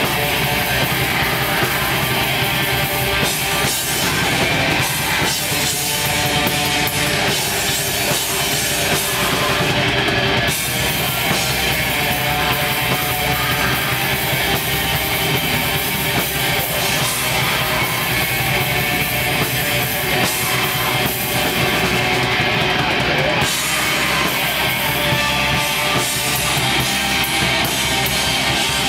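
Live black metal band playing a loud, unbroken wall of distorted electric guitars and drums.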